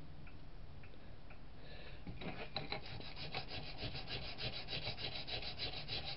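Sandpaper rubbed by hand over a firebird figure: after a few faint ticks, quick back-and-forth sanding strokes begin about two seconds in, about five a second.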